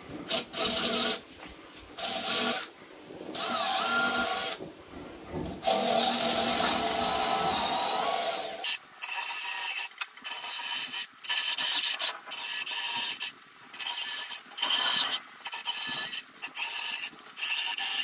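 Cordless drill running in bursts as it drills into the corners of a wooden subwoofer cabinet. In the first half come a few longer runs with a high motor whine that climbs as it speeds up; after that comes a rapid series of short bursts.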